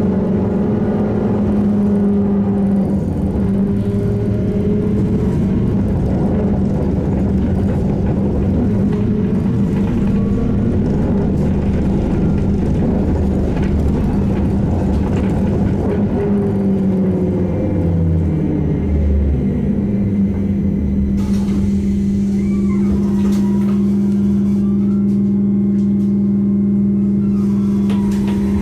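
SVARZ-MAZ-6235.00 trolleybus heard from on board: running noise over a steady electric hum, with the drive's pitch sliding down as it slows. About twenty seconds in the road noise drops away and the steady hum carries on alone.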